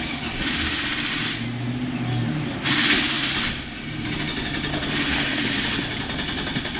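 Starter motor cranking a 2001 GMC Sierra's engine over steadily without it firing: the theft-deterrent system is disabling fuel, so the engine turns but does not start.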